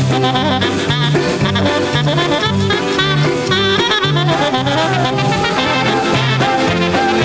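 Polka band playing, with saxophone and brass over a steady two-beat bass, about two bass notes a second.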